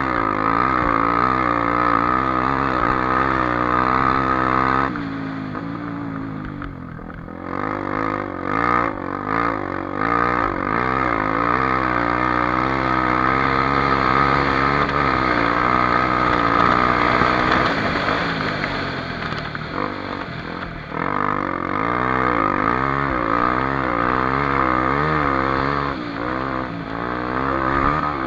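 Honda XR250 Tornado's single-cylinder four-stroke engine running hard, its revs rising and falling with the throttle and gear changes. It eases off twice, around five to seven seconds in and again just after twenty seconds.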